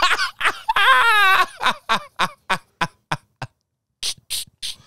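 A man laughing hard: a wavering high vocal cry, then a string of short rhythmic bursts that fade away, then breathy, hissing gasps.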